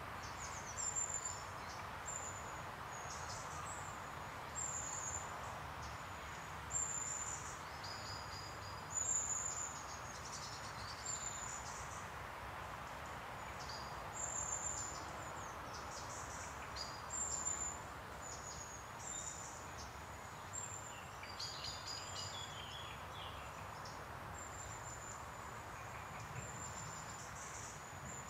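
Countryside ambience: short, high, thin chirps repeated irregularly over a steady low background noise.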